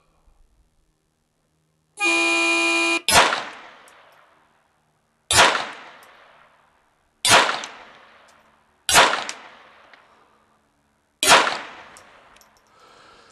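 A range horn sounds a steady tone for about a second to start a timed-fire string. A semi-automatic pistol then fires five shots roughly two seconds apart, each trailing off in echo.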